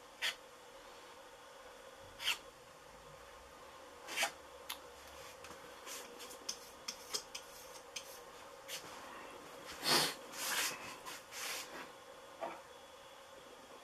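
Short, irregular scrapes and rubs of an artist's spatula spreading EverCoat body filler over a model aircraft fuselage, clustering in the second half and loudest about ten seconds in, over a faint steady hum.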